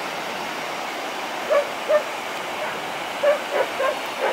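Dog barking, about six short barks starting a second and a half in, over the steady hiss of surf and wind.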